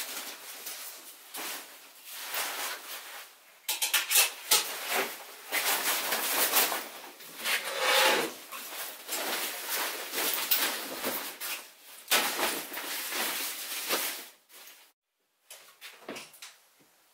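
Nylon backpack and gear being handled and packed: rustling fabric and small knocks and clicks in uneven bursts, loudest in the middle, dropping away about fifteen seconds in.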